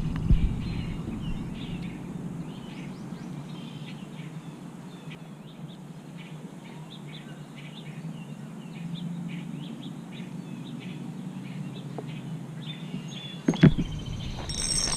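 Small birds chirping repeatedly over a steady low background rumble. Near the end come a few sharp knocks, followed by a brief high buzzing.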